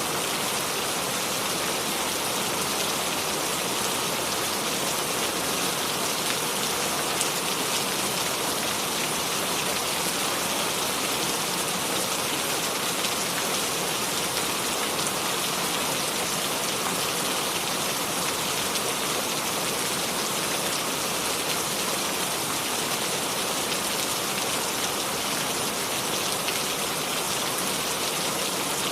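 Steady rain: a dense, even hiss of drops falling, with no thunder.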